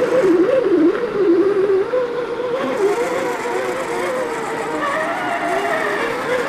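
Electric motor and gearbox whine of 1/10-scale RC crawler trucks climbing a dirt bank. The pitch wavers up and down with the throttle over the first couple of seconds, then holds steadier.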